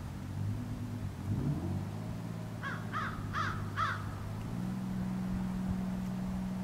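Distant boat engine droning steadily as the boat works through the bay ice, its note shifting slightly about four and a half seconds in. Midway through, a bird gives four quick calls in a row.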